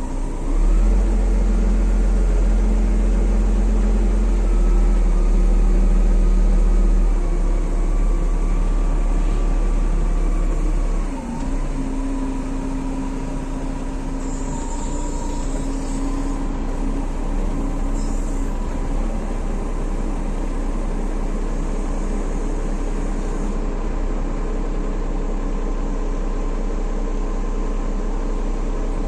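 A heavy machine's engine running, held at higher revs for the first ten seconds or so. It then drops to a steadier, lower running about 11 seconds in.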